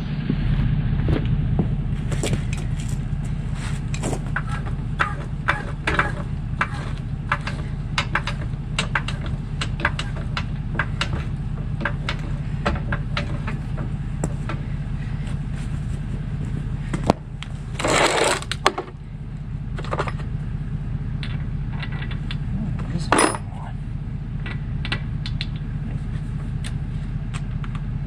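Tools and metal hardware clinking and knocking during a car tire change, scattered short clicks over a steady low hum. A louder burst of noise comes about eighteen seconds in and a shorter one about twenty-three seconds in.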